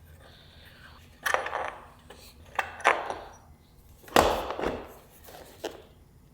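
Handling noise: small hard objects clattering and knocking, with rustling between, in about five separate bursts, the loudest about four seconds in.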